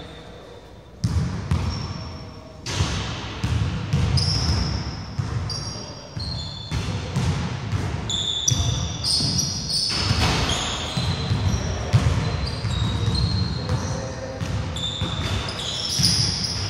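A basketball bouncing irregularly on a wooden gym floor during play, with the high, short squeaks of sneakers on the court and players' voices, all echoing in a large hall.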